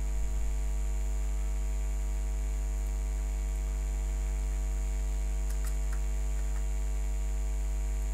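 Steady electrical mains hum with a stack of overtones and a thin high whine, with a few faint clicks.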